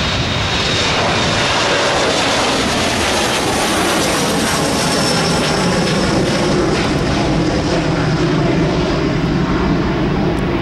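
Boeing 737's twin CFM56 turbofan engines at takeoff thrust as it lifts off and climbs away. A steady, loud jet roar with a high fan whine, and a low rumble that grows stronger in the second half.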